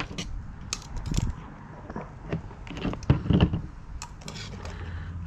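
Metal tongs clinking and scraping against a steel cooking pot as boiled mud crabs are lifted out, a series of irregular sharp clinks and knocks.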